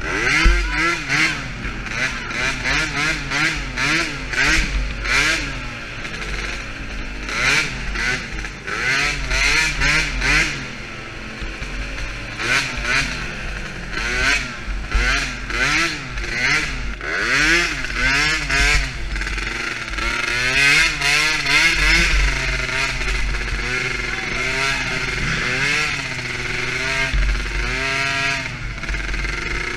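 A DRR 50cc youth quad's small engine revving up and down again and again as it is ridden around a dirt track, its pitch climbing and dropping with each twist of the throttle. Short rushes of noise break in all the way through.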